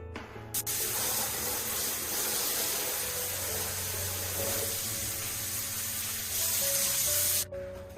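Water running steadily, turned on suddenly about half a second in and cut off near the end, with background music underneath.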